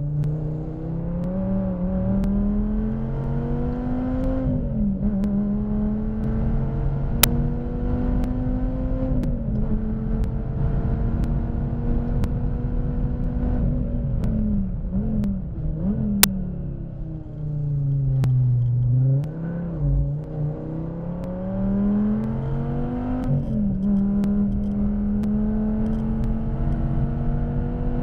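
Dodge Viper ACR's V10 engine heard from inside the cockpit at racing speed: revs climb and drop back at each upshift, then fall away under braking with short rev rises on the downshifts before the engine pulls hard again. Two sharp clicks cut through, about seven and sixteen seconds in.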